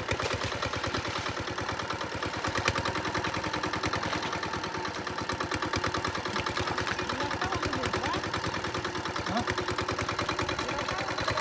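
Small engine of a water pump running steadily with a fast, even beat.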